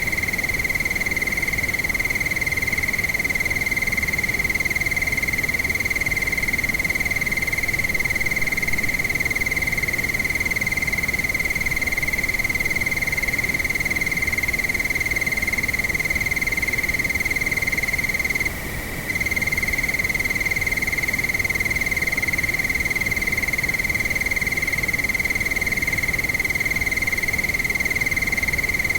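Crickets trilling in one unbroken, steady high note over a windy hiss of night ambience, with a brief half-second dip about two-thirds of the way through.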